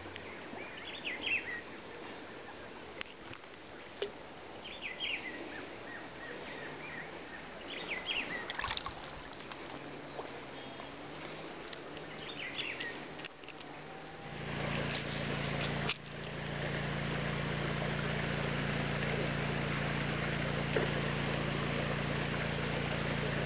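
Outdoor ambience with a few short bird chirps, then about fourteen seconds in an engine starts up abruptly and runs steadily at an even pitch, louder than everything before it.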